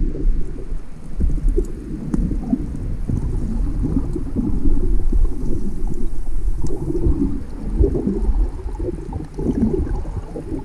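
Muffled underwater water noise: a dense, low, irregular rumbling and gurgling of water moving around the submerged camera, with little above the low end.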